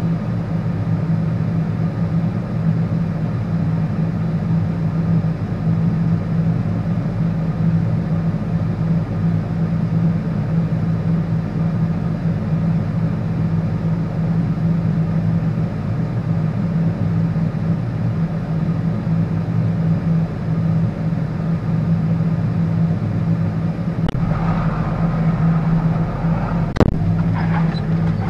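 Tractor engine running steadily, heard from inside the cab as a constant low drone. Near the end the sound grows rougher with a deeper rumble, and there is a single sharp click.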